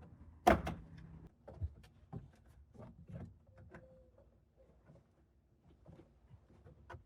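Plastic interior trim panel being pried off its retainer clips: a sharp snap about half a second in as a clip pops free, then scattered smaller clicks and knocks of the plastic panel being worked loose.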